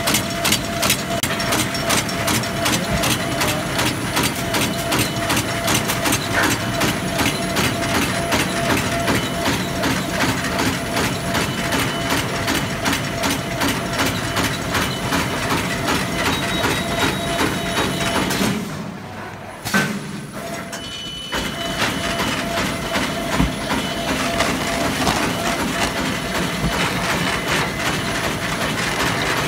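Disposable polyethylene glove making machine running: a rapid, even mechanical clatter with a steady hum underneath. It turns briefly quieter about two-thirds of the way through, then picks up again.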